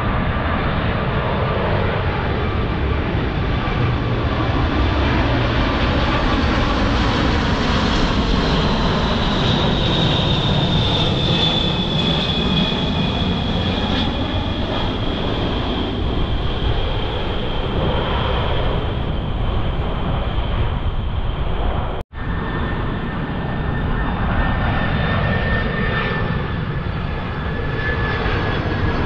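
Jet airliners on final approach passing low overhead: a steady engine roar with a high whine that slowly falls in pitch. The sound breaks off for a moment about two-thirds of the way through. It then picks up on a Boeing 767-300F freighter passing over, its whine lower and steadier.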